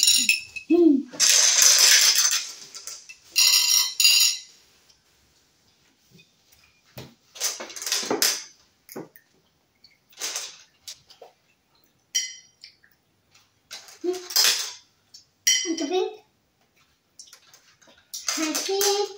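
Small hard-shelled candies rattling and clicking against a ceramic bowl and plates as handfuls are scooped and dropped. There is a longer rattling spell about a second in, then scattered single clicks, with a child's voice now and then.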